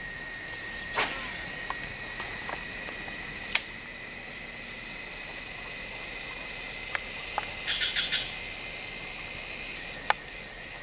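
Forest insect chorus: several steady, shrill high-pitched tones. A few sharp clicks stand out, about one, three and a half and ten seconds in, and a short burst of rapid chirps comes about eight seconds in.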